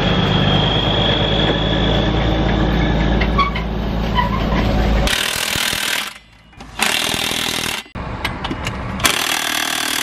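A cordless impact wrench hammers loose combine wheel bolts tight in three bursts of about a second each in the second half. The bolts had not been torqued. In the first half a diesel truck engine idles steadily.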